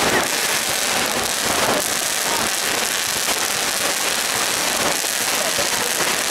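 Ground fountain firework (a gerb in a set-piece display) spraying sparks with a steady hiss.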